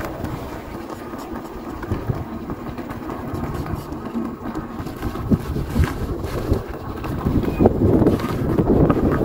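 A moving vehicle's rumble with wind buffeting the microphone, the wind growing louder near the end.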